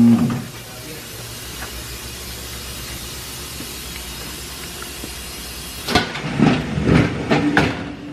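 A machine's motor hum winding down in pitch and stopping, then a steady hiss, then a quick run of five or six loud mechanical clunks and hisses near the end.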